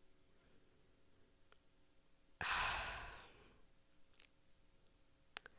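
A woman's heavy sigh: one long breath out about two and a half seconds in, starting sharply and fading over about a second.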